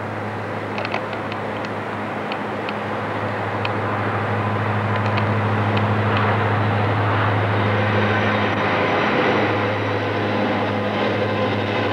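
Diesel freight locomotives approaching and passing, their engines getting steadily louder as the train nears, with a constant low drone throughout.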